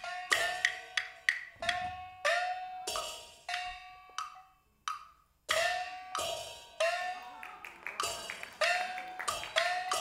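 Chinese opera percussion from a glove-puppet show's backstage band: a small hand gong struck again and again, its ringing pitch bending upward after each stroke, with sharp wooden clapper clicks and cymbal crashes. The beat breaks off briefly about halfway through, then resumes.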